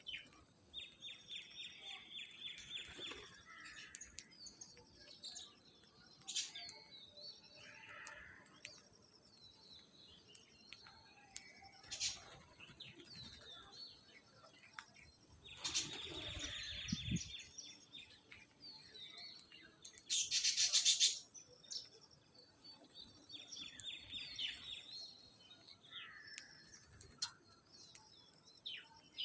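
Parrots chirping and calling, with quick trilled chirps repeated on and off. A loud rustling burst lasting about a second comes around two-thirds of the way through.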